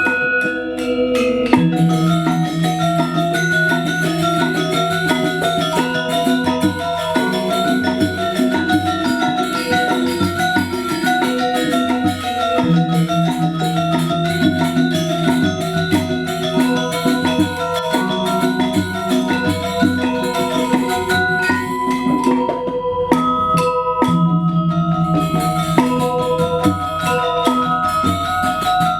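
Balinese gamelan playing dance music: bronze metallophones ring out quick, interlocking note patterns over long, sustained low notes.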